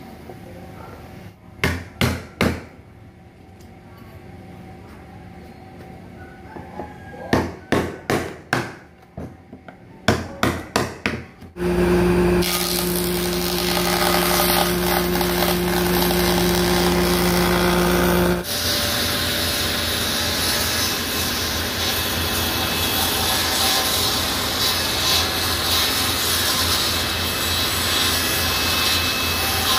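Groups of sharp wooden knocks and clacks as bar clamps are set on a glued, laminated bent-wood frame. About twelve seconds in, a combination jointer/planer motor starts running with a steady hum. About six seconds later it gives way to a table saw cutting the laminated frame, a steady whirring noise.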